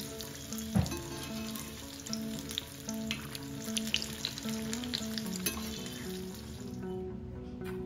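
Batter-coated green chillies (mirchi bajji) deep-frying in hot oil in a cast-iron pan, being turned with a slotted spoon: a steady crackling sizzle that drops away near the end. A single knock sounds about a second in, and a soft melody plays underneath.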